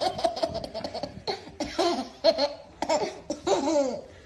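Toddler belly-laughing: a quick string of short laughs, then several separate bursts, each sliding down in pitch.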